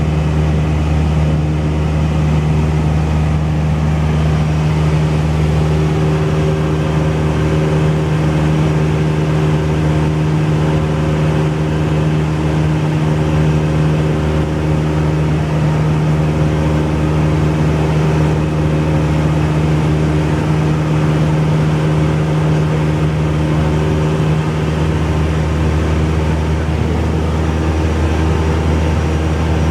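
Cessna 172's piston engine and propeller running steadily in flight, a constant loud drone.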